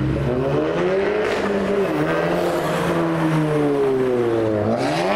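Audi A1-bodied hatchback's engine accelerating as it drives past: the note climbs, eases off, then rises steeply and falls away near the end.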